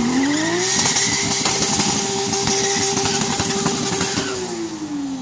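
An engine revving up, held at steady high revs for about three and a half seconds, then easing back down near the end, with a crackly rasp throughout.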